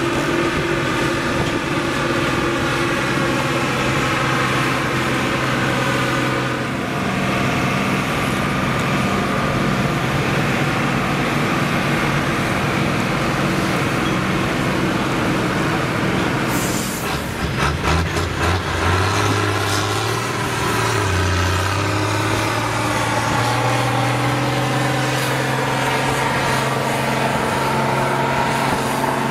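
Diesel farm tractor engines working hard under load as they drag a tractor-pulling sled, a steady heavy drone throughout. About two-thirds through there is a brief burst of clattering, then an engine drones on steadily again.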